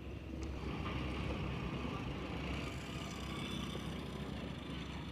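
Small commuter motorcycle engine running at low revs as the bike is ridden slowly through a chalked figure-eight test course, a steady low rumble.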